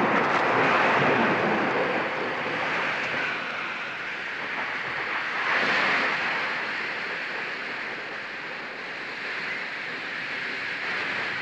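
Sound effect of a great fire blazing: a steady rushing noise that swells over the first two seconds and again about six seconds in.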